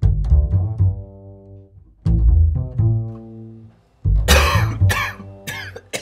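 Plucked double-bass music, a low note struck about every two seconds and left to ring and die away. About four seconds in, a person breaks into a fit of coughing over it, several harsh coughs in quick succession.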